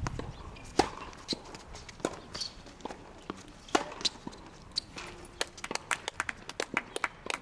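Tennis balls struck by racket strings, a sharp pop about a second in and another near four seconds, with lighter ball bounces between, then a quick patter of tennis shoes on the hard court.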